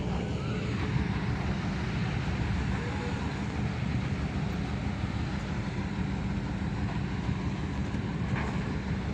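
Heavy diesel machinery engine running steadily, with a constant low engine noise and no clear changes.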